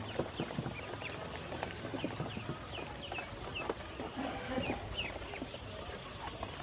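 A group of ducklings peeping: many short, high chirps that fall in pitch, overlapping one another, with soft tapping and splashing as they peck and dabble in a shallow plastic basin of water.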